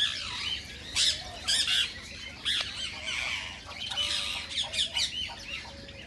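Indian ringneck parrot calling: a string of short, high chirps and squawks at uneven intervals.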